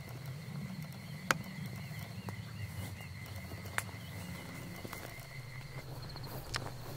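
Crickets trilling steadily, one high trill stopping about six seconds in, over a low steady rumble, with three sharp clicks spread through.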